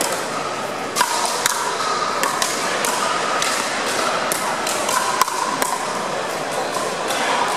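Pickleball rally: paddles striking the hard plastic ball in a quick, irregular series of sharp pocks, a dozen or so hits and bounces over the few seconds.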